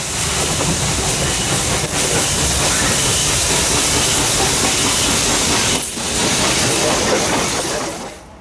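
Norfolk & Western J-class 611 steam locomotive passing close at speed, its exhaust and steam hiss a loud, steady rush that fades out near the end.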